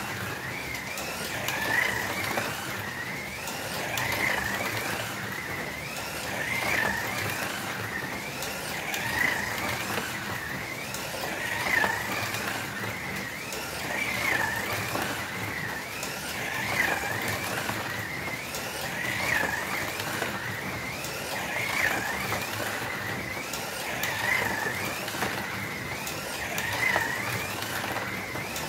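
Slot cars running on a plastic slot track: a high electric-motor whine over a steady hiss, rising and falling in pitch and loudness about every two and a half seconds.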